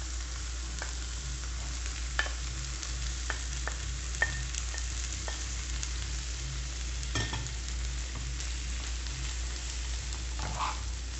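Shredded cooked chicken and chopped onion sizzling steadily in olive oil in a frying pan as a wooden spoon stirs them, the spoon clicking and knocking against the pan and bowl every second or so, most sharply about two and seven seconds in.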